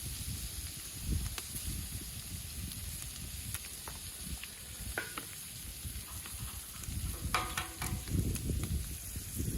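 Ham and eggs sizzling in a hot pan, a steady frying hiss, with a few light clicks and a short clatter about three quarters of the way through.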